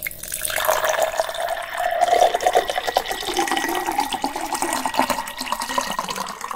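Liquid being poured in a steady stream, stopping near the end.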